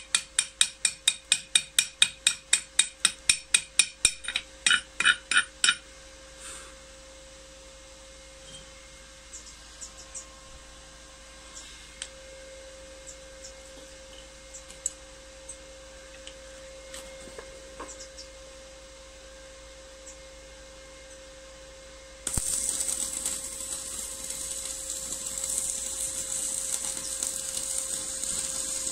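Rapid metal-on-metal strikes with a ringing note, about five a second, for the first six seconds: a piece of flat steel knocking on a welded steel bar. Then a few light clicks, and from about 22 seconds in the steady crackling hiss of stick arc welding from an inverter welding machine, working again after its burnt capacitor was replaced.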